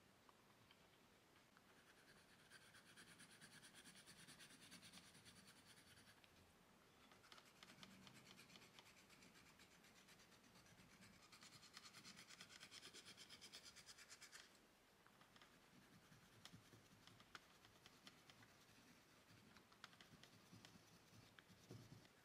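Oil pastel stroking across paper, faint and scratchy, in two longer spells of quick back-and-forth strokes, then scattered single strokes near the end.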